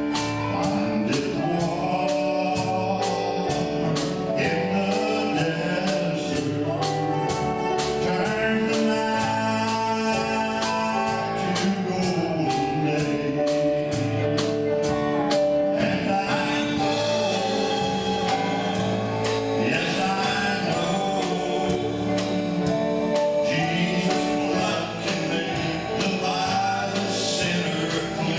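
A man singing a gospel song into a microphone, accompanied by an electronic keyboard with a steady beat.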